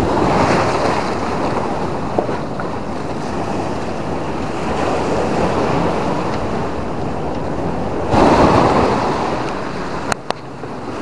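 Sea waves washing up a sandy beach: a steady rush of surf with a louder surge about eight seconds in, wind buffeting the microphone. Two sharp clicks near the end.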